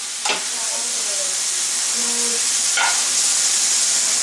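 Skillet of sautéed peppers, onions and mushrooms sizzling steadily while it is served out, with two light clacks of the serving tongs against the pan.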